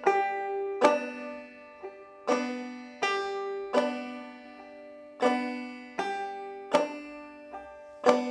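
Five-string banjo played clawhammer style: the slow basic "one, two-and" lick, sharp struck notes about one every three-quarters of a second, each ringing and fading, with a few lighter plucks between them.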